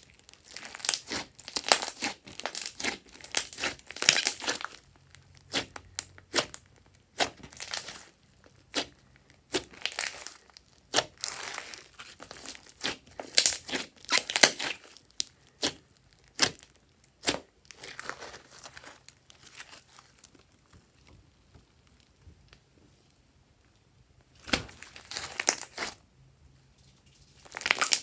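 Thick pink slime with small beads being kneaded, pressed and squeezed by hand, giving irregular runs of sharp crackling and popping, with a few seconds' pause about three quarters of the way through before it starts again.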